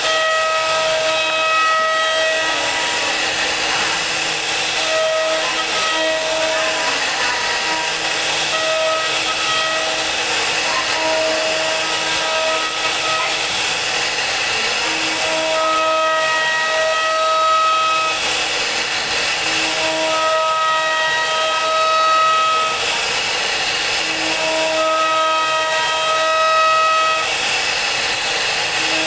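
CNC router's high-speed spindle carving a relief pattern into a wooden panel: a steady hiss with a high-pitched whine that comes and goes every few seconds.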